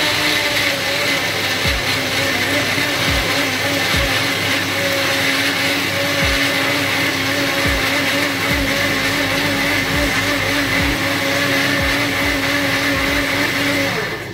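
Electric mixer grinder running steadily, blending onion, green chillies, ginger, garlic and coriander with a little water into a green masala paste; it stops abruptly near the end.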